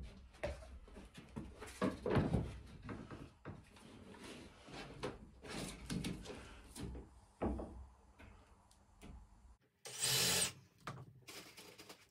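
Wiring trough being pushed and slid into place under a boat's gunnel: an irregular series of scrapes and knocks, with one louder, longer scrape about ten seconds in.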